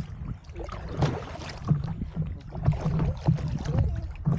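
Water sloshing and splashing against a paddle board in shallow water, in irregular surges.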